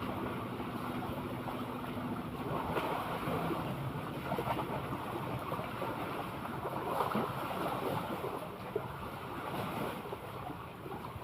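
Sea water washing and lapping, with wind on the microphone; a steady low hum runs under it for the first couple of seconds, then stops.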